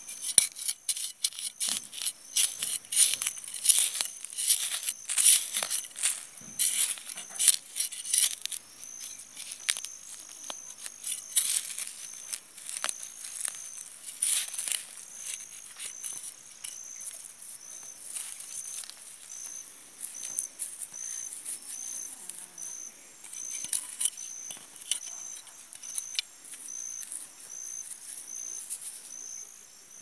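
Hand trowel scraping and digging through loose soil around sweet potato tubers: quick gritty scrapes, dense for about the first half and sparser after. Behind them, an insect's high, steady trill.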